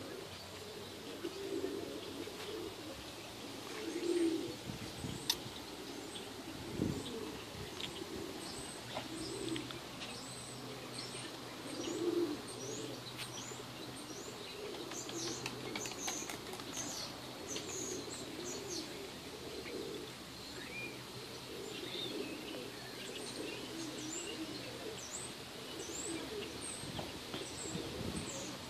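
Birdsong: a dove cooing over and over in low, soft phrases, with small birds chirping high and quick above it.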